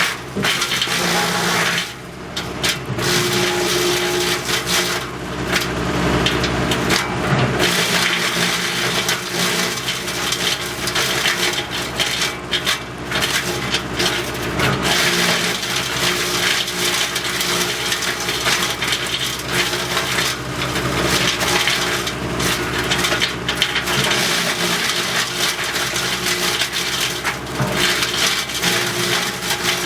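WC42 wood chipper running steadily, its engine drone under a continuous crackling and crunching of wood being chipped.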